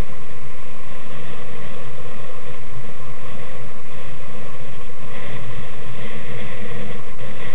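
Steady, loud rushing drone of a vehicle moving along a road, wind and ride noise on a low-quality camera microphone, unchanging throughout.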